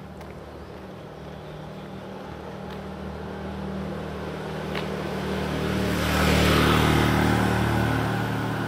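A small motorcycle engine running as it approaches along the street, growing louder over several seconds, loudest about two-thirds of the way through, then easing slightly.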